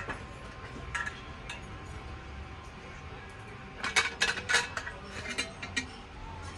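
Metal kettle being handled: a few light taps and clinks, then a quick run of clinks about four seconds in as its metal lid is worked off the body.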